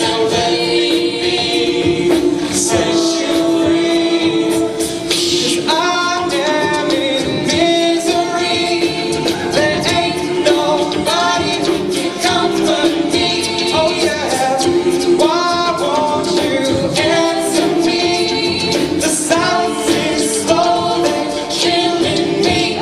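A co-ed a cappella group singing a pop song live: a male lead voice over sustained backing vocals, with a steady vocal percussion beat.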